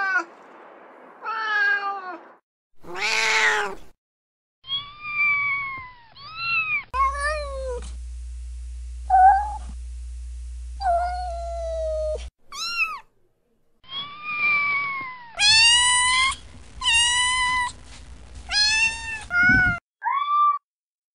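Domestic cats meowing: a run of a dozen or more separate meows, some short and rising, some longer and falling, from several different recordings spliced one after another.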